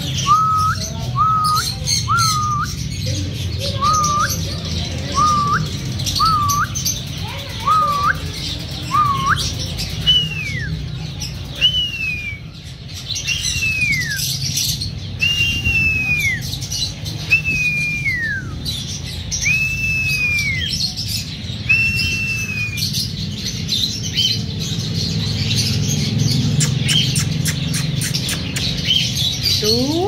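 Birds whistling in clear repeated notes. First come short rising notes about once a second, then, from about a third of the way in, seven longer falling whistles about every two seconds, over a busy background of high chirps and clicks and a low hum.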